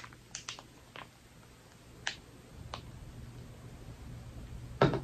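Sticky marshmallow slime being pulled and stretched out of a small plastic cup: a few faint, scattered sticky clicks, with a louder click near the end.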